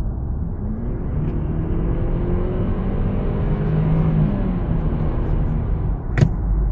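Inside the cabin of a 2012 Jaguar XF, its 2.0-litre turbocharged four-cylinder EcoBoost engine pulls hard under full throttle, its note rising steadily through the revs. About four seconds in, near the redline, it breaks off as the eight-speed automatic upshifts. A single sharp click comes near the end.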